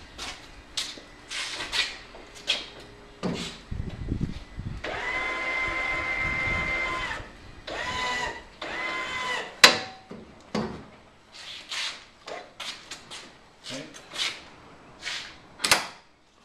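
Electric linear actuator motor on a homemade lift arm whining steadily for about two seconds, then in two short bursts, amid metal clanks and clicks from the steel arm and its pins being handled.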